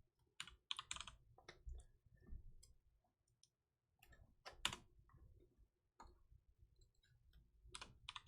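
Faint, irregular clicks and rustles of trading cards being handled and flipped, with a louder pair of clicks about halfway through.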